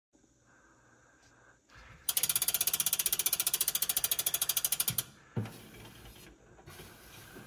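Velomobile rear wheel's freehub ratcheting as the spun wheel freewheels: a fast, even run of pawl clicks that lasts about three seconds and stops suddenly, followed by a couple of dull thumps.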